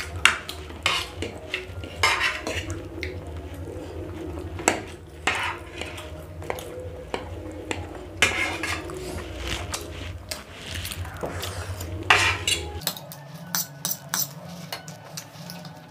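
Metal forks clinking and scraping against plates as two people eat macaroni pasta: irregular sharp clicks, several a second, with short scraping sounds in between.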